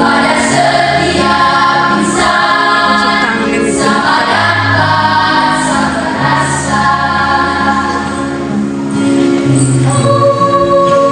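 Junior high school choir singing in several parts at once, with held low notes under moving upper voices.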